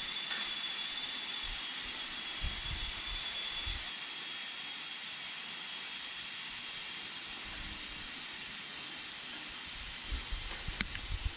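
Steady high hiss of air escaping through the open puncture in a Milestar Patagonia tire, where a bolt has been removed and the hole reamed, leaving the tire losing pressure until it is plugged. A faint click comes near the end.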